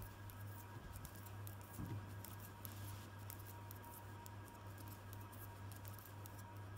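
Metal knitting needles clicking and ticking faintly and irregularly as stitches are worked, over a steady low hum.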